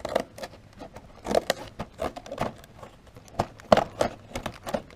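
Toy packaging being torn and worked open by hand: a run of irregular crackles, rustles and snaps.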